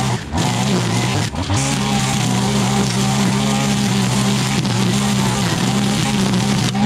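String trimmer engine running steadily at high revs while cutting tall, dense grass, its pitch dipping briefly twice in the first second and a half.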